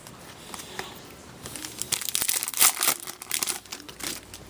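Foil wrapper of a hockey card pack crinkling and tearing open, a dense crackle that builds from about one and a half seconds in, peaks in the middle and trails off with a last short flurry near the end.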